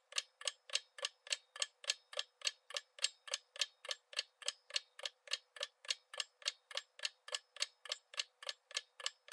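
Ticking-clock sound effect of a quiz countdown timer: sharp, even ticks at about four a second, counting down the time to answer.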